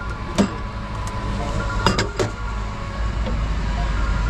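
Steady low rumble of street traffic, with sharp clinks of dishes about half a second in and a quick cluster of them near two seconds.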